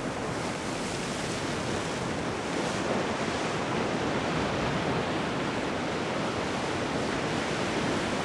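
Sea surf breaking and washing ashore: a steady rushing roar of waves with no distinct single crash.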